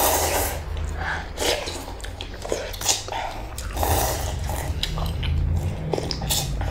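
Close-miked eating sounds of black bean fire noodles: chewing and slurping, with many short wet mouth clicks.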